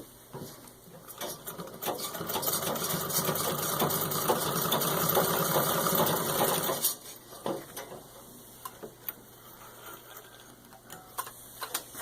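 1923 Singer 66-4 treadle sewing machine stitching through six layers of denim: it starts with a few clicks, builds up into a steady run, then stops suddenly about seven seconds in, leaving only faint clicks.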